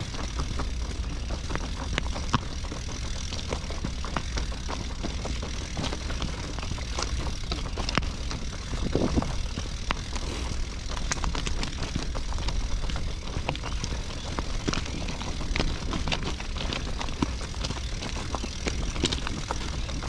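Vehicle rolling along a gravel trackside path, its tyres crunching and popping on loose stones over a steady low rumble.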